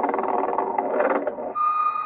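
Vintage Telco Motion-ette Sleeping Santa animated figure playing its snoring cycle: a long snore lasting about a second and a half, followed about one and a half seconds in by a steady whistled note.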